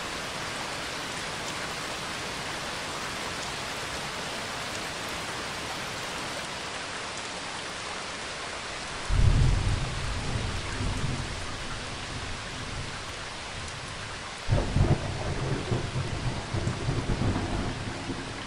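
Steady rain falling, with thunder rumbling twice: a loud clap about halfway through and another a few seconds later.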